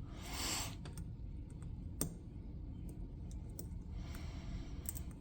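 Scattered small metallic clicks of a lock pick and tension wrench working the pins in a Master Lock M530 padlock's keyway, with one sharper click about two seconds in. There is a short rustling hiss about half a second in.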